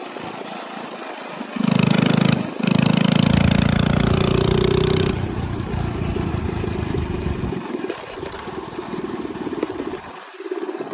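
Coleman CT100U mini bike's single-cylinder engine running through an aftermarket AR Sport exhaust while riding. The throttle opens hard about one and a half seconds in, drops for a moment, opens again for a few seconds, then eases back to steadier, quieter running.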